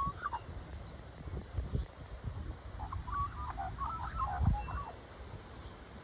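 Australian magpie warbling: a short call at the start, then a longer burst of quavering notes about three seconds in.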